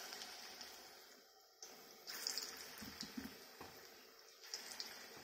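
Jackfruit jamun batter deep-frying in hot oil: a faint, steady sizzling and bubbling, with louder spurts of sizzle a few times as fresh lumps of batter drop into the oil.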